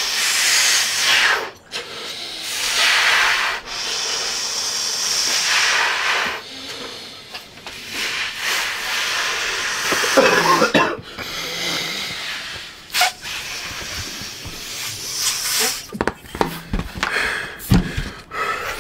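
Red latex balloons being blown up hard by mouth: long, forceful breathy puffs of air into the balloons, one after another with short breaks for breath. A short burst of voice about ten seconds in and a few knocks near the end.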